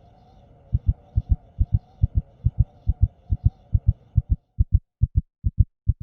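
Fast heartbeat sound effect: low double thumps, a little more than two beats a second, starting under a second in. A faint background hum drops out about four seconds in.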